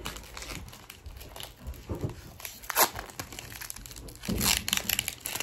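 Foil wrapper of a football trading-card pack crinkling and being torn open, in irregular bursts, loudest about three seconds in and again around four and a half seconds in.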